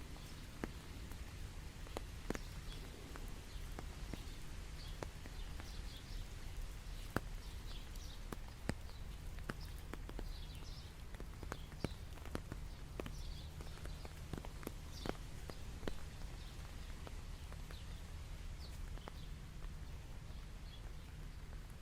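Rain dripping in irregular single drops that tap sharply, over a steady low hum, with short high chirps of birds or insects scattered through.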